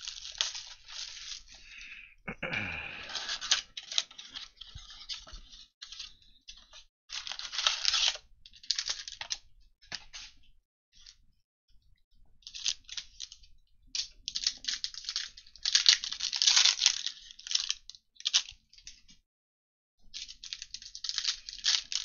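A cardboard blaster box of Panini Prestige football cards being opened and its foil packs and cards handled, giving bursts of crinkling, rustling and tearing with short pauses between. About two seconds in there is one longer sound that falls in pitch, and there is a brief near-silent gap near the end.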